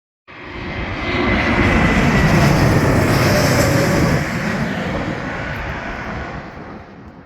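An airplane flying past loudly: its engine noise swells up from nothing, peaks a couple of seconds in, then fades away as it recedes.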